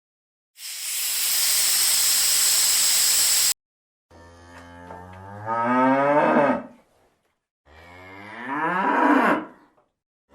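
A steady hiss for about three seconds that cuts off suddenly, then a cow mooing twice: two long calls that swell louder and drop in pitch at their ends.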